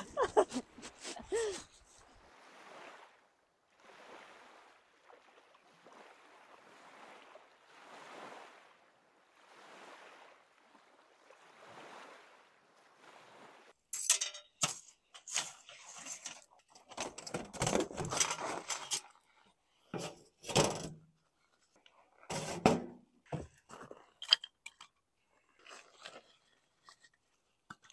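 Small waves washing softly on a pebbly shore, swelling and fading every couple of seconds. About fourteen seconds in, close metal clanks and rattles begin as a folding steel fire-pit stand is set up on gravel, followed by knocks of split firewood being handled and laid down.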